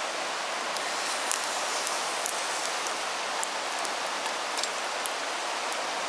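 Bacon, eggs and popcorn sizzling together in a four-section cast pan over a gas stove: a steady sizzle with scattered sharp pops and spits.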